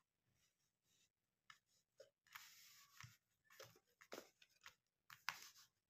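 Faint rustling and light taps of tarot cards being slid and laid down on a cloth-covered table, over near-silent room tone.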